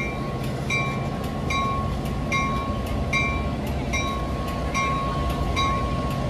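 Railroad bell ringing steadily, about once every 0.8 seconds, over the low rumble of a train.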